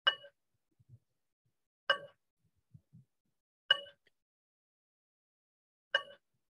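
Hand-held metal singing bowl struck with a padded mallet four times, about every two seconds. Each strike gives a bright ring of several tones that dies away quickly.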